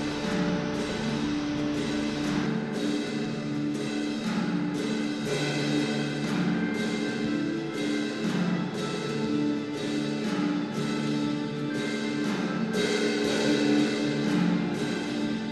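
Background music track: a slow piece of held pitched notes that change about once a second.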